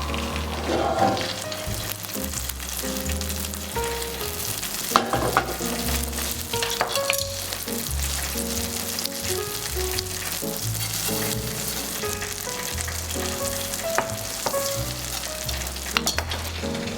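Food sizzling in a hot pan, with scattered clicks of a utensil stirring, over soft background music.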